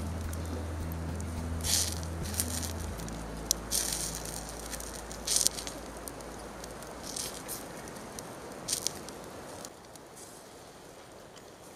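Wood fire crackling, with irregular sharp pops over a low steady hum that stops about three seconds in.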